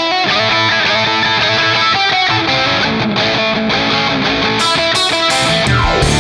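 Rock and roll band music: an electric guitar plays the intro alone. Cymbal strokes come in about four and a half seconds in, then a sweep falling in pitch leads into the full band, with drums and bass entering near the end.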